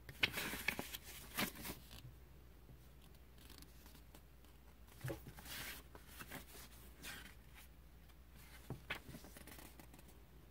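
Paper pages of a small printed booklet turned and flipped by hand, in three short bouts: at the start, about five seconds in, and near nine seconds.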